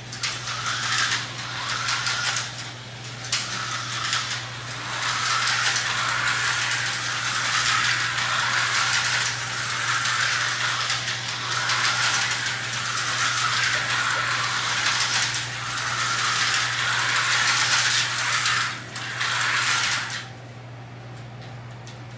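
A vintage Tyco HO slot car running laps on a plastic track: a small electric motor whirring and the car rattling in its slot, swelling and fading as it goes round. The run cuts off suddenly about 20 seconds in.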